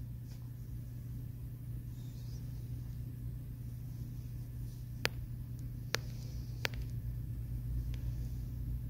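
A low, steady hum with three sharp clicks close together about five, six and six and a half seconds in.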